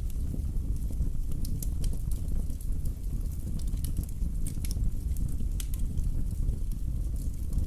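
Wood fire burning in a fireplace: a steady low rumble of the flames with irregular sharp crackles and pops of the logs.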